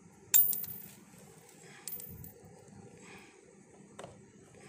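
Small metal trim screws clinking together in the hand: a sharp bright clink with a short ring about a third of a second in, a second, softer one just under two seconds in, then a small click near the end.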